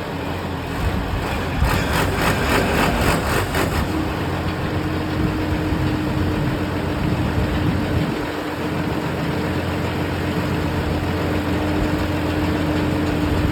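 Diesel engine of a mobile generator-powered crusher running steadily. Starting about two seconds in, a rapid rhythmic clatter of about four or five strokes a second lasts roughly two seconds. After that a steady hum holds over the engine.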